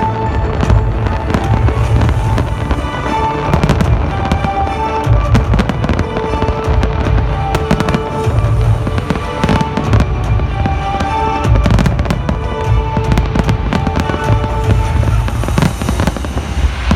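A fireworks display going off continuously: dense rapid bangs and crackling over deep rolling booms, with music playing underneath.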